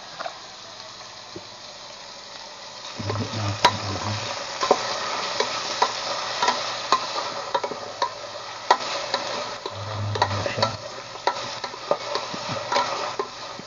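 Sliced onion and ginger sautéing in an aluminium pot, a steady sizzle that grows louder about three seconds in. A wooden spoon stirs and scrapes against the pot in repeated sharp clicks.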